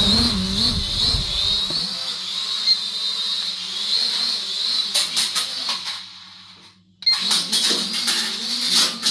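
Small quadcopter drone's propellers whining in flight, the pitch wavering as the throttle changes, with a few sharp clicks and knocks. The whine fades almost to nothing about six seconds in and cuts back in suddenly a second later.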